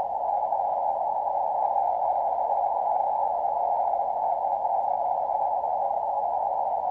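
Steady, narrow hiss of receiver noise from a Lab599 TX-500 transceiver's speaker. A narrow filter confines it to a mid-pitched rush. It is the noise a K7QO noise bridge feeds into the receiver while a magnetic loop antenna's tuning capacitor is turned for minimum noise.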